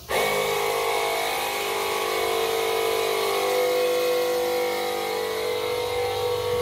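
Commercial flush-valve toilet flushing: a steady rush of water through the bowl with a whistling hum from the valve, starting abruptly.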